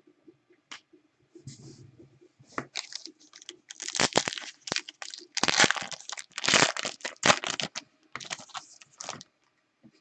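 A trading card pack's wrapper being torn open and crinkled by hand: a run of sharp tearing and crackling rustles that peaks in the middle and dies away near the end.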